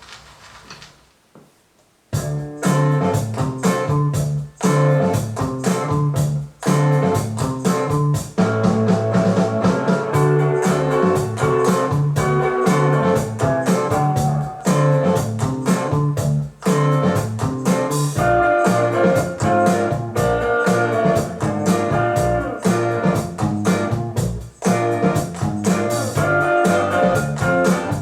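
Guitar music played back through Mission M71 bookshelf speakers as a sound sample. One track fades out at the start, and after about two seconds of quiet a new guitar track with a steady bass line begins.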